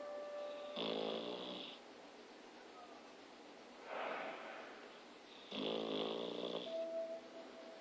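A dog snoring: two snores about a second long each, roughly four and a half seconds apart, with a single breathy breath between them.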